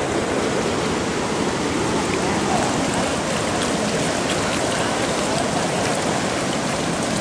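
Swollen river after rain rushing past in a steady, even flow of water noise.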